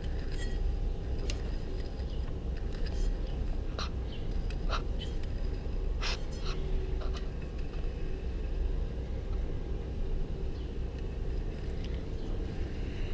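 Metal lathe running steadily, slowly turning the vacuum compressor housing while its runout is checked with a dial indicator, with a few light metallic clicks scattered through.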